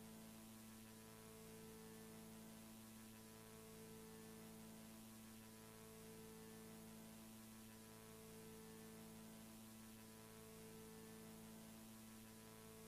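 Near silence: a faint, steady electrical hum over hiss, the empty soundtrack of a silent VHS-style film.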